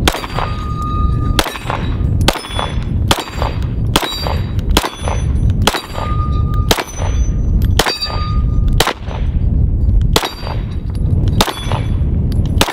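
Stoeger STR-9 9mm pistol firing shot after shot at a slow, steady pace, about one shot a second. Some shots are followed by a short metallic ring from a steel target being hit downrange.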